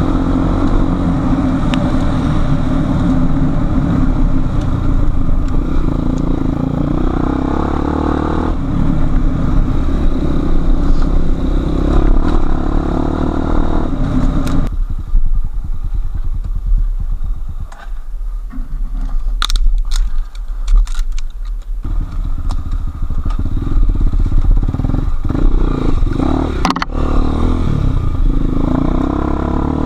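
Enduro motorcycle engine running under changing throttle off-road. About halfway through the engine sound falls away for several seconds, with a few sharp knocks and clicks, then it pulls strongly again.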